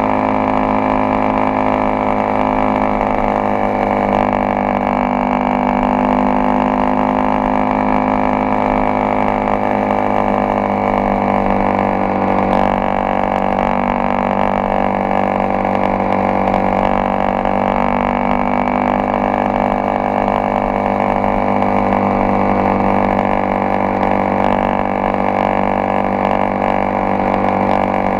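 Honda XRE 300's single-cylinder engine running at a steady cruise, a constant drone whose pitch barely changes.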